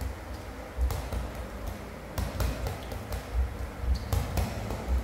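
Irregular dull thumps, a dozen or so at uneven spacing, with a few light taps: a plastic toy ball bouncing and being handled on a tiled floor.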